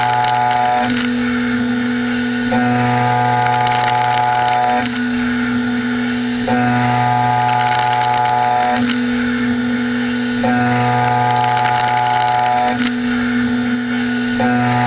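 Sandvik CoroMill Plura HFSM solid carbide end mill side milling a metal block in a CNC machining centre using the WaveForm toolpath. The cut sounds as a steady, pitched whine in several tones that switches about every two seconds in a repeating cycle.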